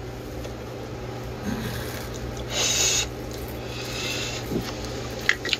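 A man drawing on a smoke and then blowing it out, a short hissing exhale about two and a half seconds in, over a steady low hum.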